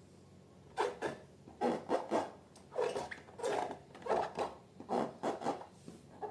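Slime being worked by hand: a run of short rubbing, scraping strokes, about two to three a second, starting just under a second in.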